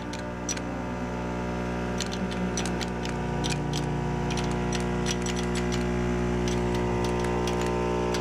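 Swiftpack Swiftcheck tablet counter dispensing softgel capsules: irregular light clicks, a few a second, as capsules drop one by one through the counting chute into a plastic bottle, over a steady hum.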